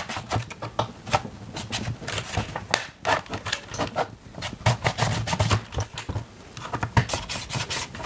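Blue plastic pry tool scraping and clicking along the seam of a DaVinci Resolve Speed Editor's case as the top plate is levered away from the bottom shell: a dense run of irregular clicks and short scrapes.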